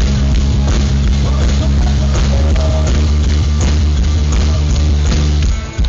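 Live rock band playing loud, with heavy bass and electric guitar. The music dips briefly near the end.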